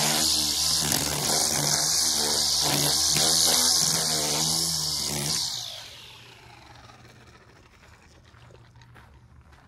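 String trimmer running at high speed, cutting grass, its pitch wavering as the throttle is worked. About five and a half seconds in the throttle is released and the whine winds down to a faint low idle hum, with faint footsteps on gravel near the end.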